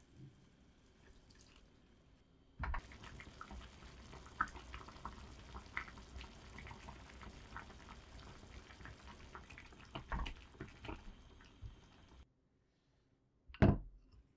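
A pot of mushroom and seaweed broth simmering on the stove, bubbling with many small pops and drips; the bubbling starts about three seconds in and cuts off near twelve seconds. Near the end, one short loud knock.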